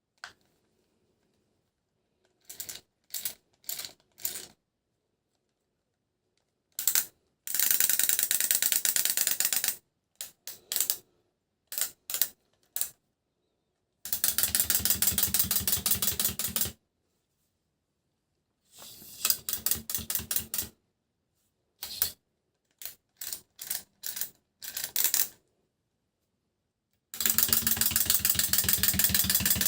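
Small electric motor and plastic gears of a battery-powered Thomas & Friends toy train, running with a fast, even ticking. It is switched on and off repeatedly, first in several brief bursts and then in longer runs of two to three seconds, with silence between.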